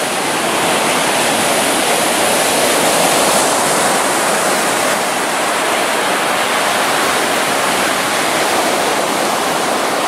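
Ocean surf breaking and washing up the beach: a steady, loud rush of water noise.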